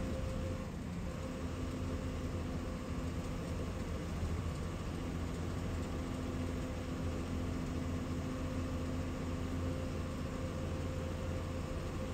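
Steady engine drone and road noise of a KSRTC Minnal express bus running at speed, heard from inside the passenger cabin. A constant low hum with a few steady tones holds even throughout.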